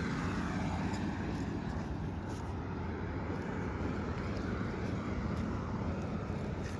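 Steady low rumble of a motor vehicle running, with a few faint clicks over it.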